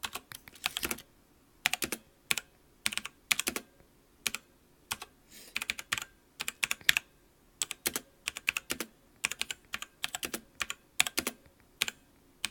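Azio MGK-1 mechanical keyboard being typed on with one hand, close to the microphone: quick runs of sharp key clicks with short pauses between them.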